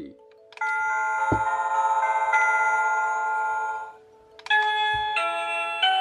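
SilverCrest STK 17 A1 wireless doorbell receiver playing one of its electronic chime melodies through its small built-in speaker, from about half a second in to about four seconds in, as recorded tones rather than a real chime. After a short pause another melody begins, its notes changing more quickly.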